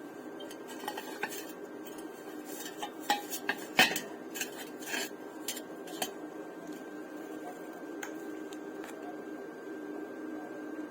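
Metal clinking and tapping: a dozen or so sharp clinks over the first six seconds, the loudest a little under four seconds in. A steady hum runs underneath.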